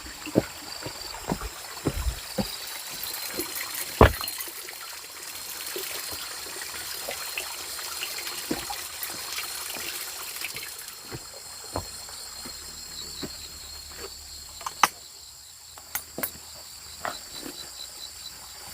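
Insects keep up a steady high-pitched drone, with a rapid pulsing chirp joining about two-thirds of the way through. Scattered sharp knocks and taps sound over it, the loudest about four seconds in.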